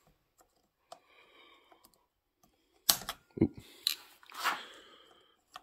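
Circlip pliers working the big circlip on a Stihl 038 Magnum chainsaw's clutch: a few sharp metallic clicks and scrapes, the loudest about three seconds in.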